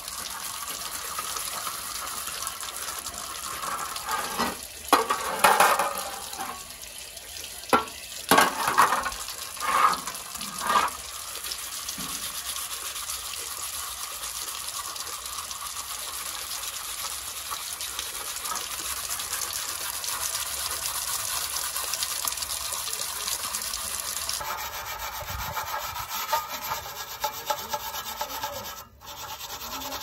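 Metal scouring pad scrubbing old paint and corrosion off a metal fan blade: a steady rasping rub, with several louder strokes between about 4 and 11 seconds in.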